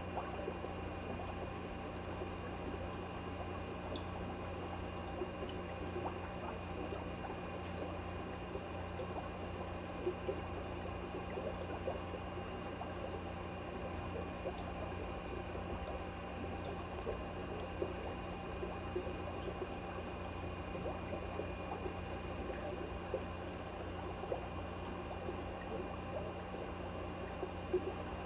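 Aquarium water trickling steadily over a continuous low hum, with occasional faint ticks.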